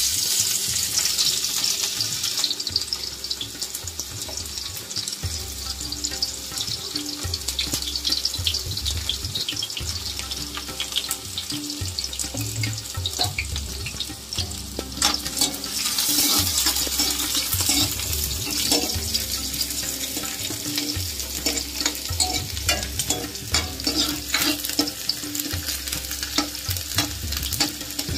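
Chopped onions and green chillies frying in hot oil in a metal kadhai, a steady sizzle that is loudest in the first couple of seconds, with the steel ladle clicking and scraping against the pan as they are stirred.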